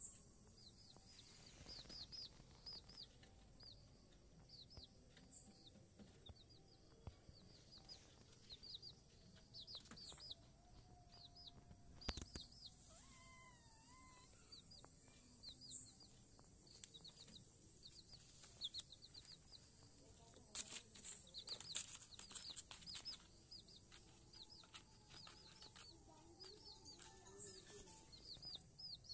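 Baby chicks peeping: faint, high-pitched, falling peeps, several a second. A sharp knock comes about twelve seconds in, and a cluster of knocks and rustles about three-quarters of the way through.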